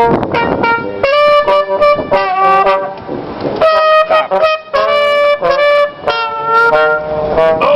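Trumpet playing a melody in phrases of short repeated notes and longer held notes.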